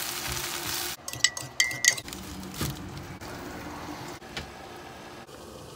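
Leafy greens sizzling in a frying pan for about a second. Then a quick run of ringing clinks from a fork against a ceramic mug as egg is beaten, followed by a few lighter kitchen knocks.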